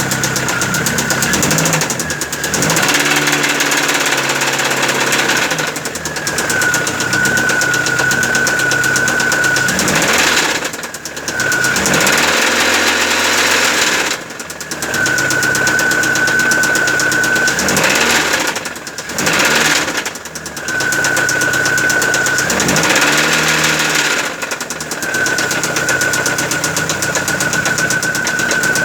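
Car engine running with a loud, heavy knock, revved up and let fall back several times, with a steady high-pitched whine between the revs. The knock is typical of a worn connecting-rod bearing: rod knock, in the mechanic's diagnosis.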